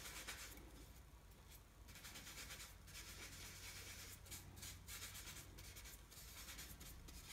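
Faint, irregular scrubbing of a paintbrush mixing paint on a palette.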